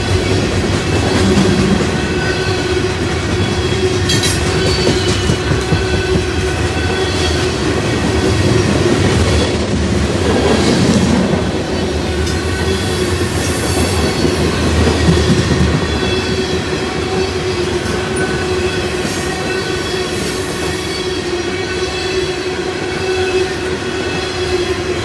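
Empty CSX coal train's gondola cars rolling past on steel wheels: a steady rumble of wheels on rail with scattered clacks and a thin, steady wheel squeal over it.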